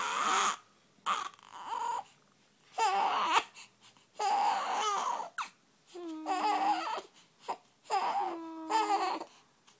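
Baby crying in a string of short wails with brief gaps between them, fussing while it has the hiccups.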